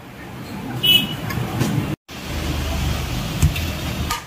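Steady street traffic noise, a low rumble with a brief high squeak about a second in and a small knock later. The sound drops out for a moment about two seconds in.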